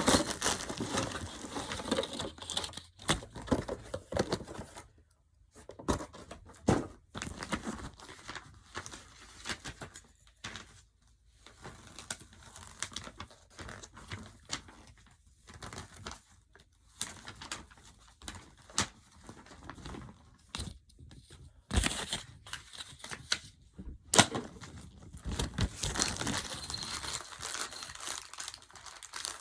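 Packing tape being torn and peeled off a box, with packaging crinkling in irregular bursts and a few sharp clicks, louder near the end.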